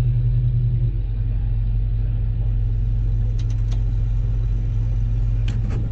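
Engine of a farm machine running steadily with a low drone. A few faint clicks come a little past the middle and again near the end.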